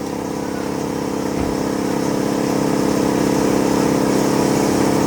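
A motor or engine running steadily at an even pitch, with a fine rapid pulse, growing slightly louder.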